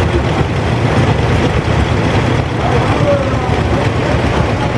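Several antique farm tractor engines running as the tractors drive slowly past in a line, a steady low rumble, with faint voices of onlookers behind.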